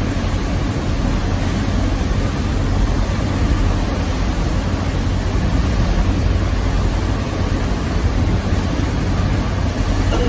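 Steady, loud rushing noise with a constant low engine hum underneath: a sightseeing cruise boat's engine running with wind on the microphone.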